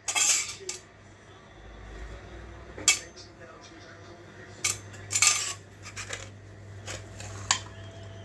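Metal kitchen utensils clinking and knocking against pots and pans as food is prepared, in a handful of separate strikes, over a faint steady low hum.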